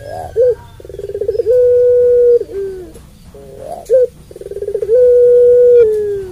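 Puter pelung, a domesticated collared dove, cooing twice: each phrase is a short note, then a rolling build-up into one long held coo that drops in pitch at its end. This is the long-drawn coo ('suara panjang') prized in this breed.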